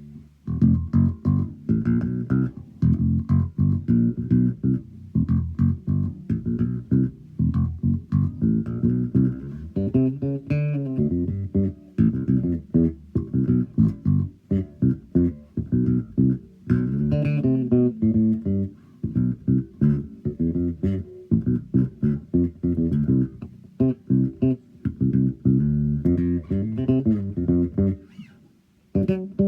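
Sadowsky Modern 5 ME five-string electric bass played solo: quick runs of plucked notes, with a short pause near the end.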